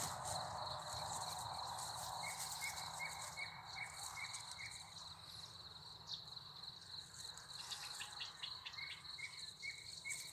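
Insects calling in a field: a steady high-pitched trill throughout, with a second insect's evenly spaced short chirps, about three a second, coming in twice.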